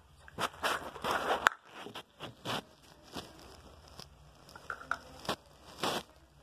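A string of short crackling, rustling handling noises from a plastic bottle and cup being handled at close range, the loudest about a second in.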